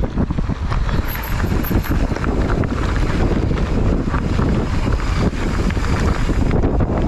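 Wind buffeting the microphone of a camera on a moving bicycle: a loud, steady, rumbling rush without a break.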